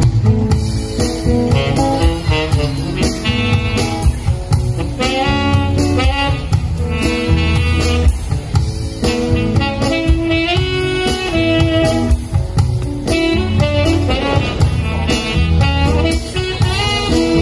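Live band playing amplified music through PA speakers: a lead melody line moving note to note over bass and a steady beat.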